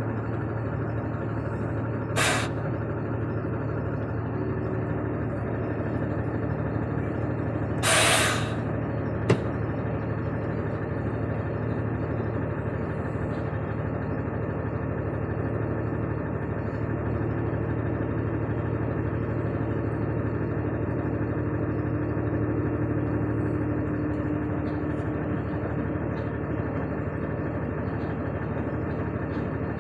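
John Deere tractor's diesel engine running steadily as its front loader dumps sand into a truck. Two short hisses cut across it, one about two seconds in and a longer one about eight seconds in, with a sharp click just after.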